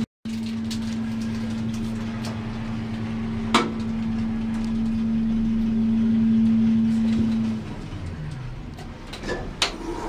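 Schindler lift's variable-frequency drive hum during a ride: a steady, even tone that grows a little louder and then stops about seven and a half seconds in as the car comes to rest. A single sharp click sounds about three and a half seconds in, and near the end clicks and a rush of noise come as the car doors start to open.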